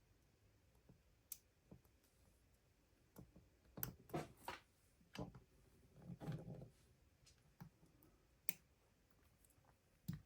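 A lock pick and turning tool working inside a padlock: scattered sharp metallic clicks, with a busier run of clicking and a brief scraping rattle in the middle.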